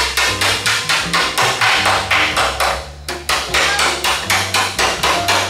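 Hammer-and-dolly work on the steel edge of a 1955 Buick Century hood: rapid, even hammer blows, about four a second, straightening the panel edge, with a brief pause about three seconds in.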